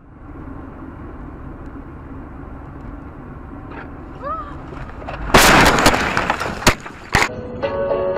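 Steady tyre and road noise inside a car on a wet road. About five seconds in comes a sudden, very loud crash lasting about a second, followed by two sharp knocks, typical of a collision picked up by a dashcam's microphone.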